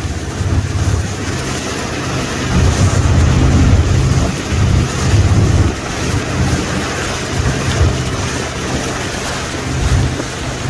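Motorboat running at speed while towing a wakeboarder, with its wake churning behind it. Heavy wind buffets the microphone in uneven low gusts.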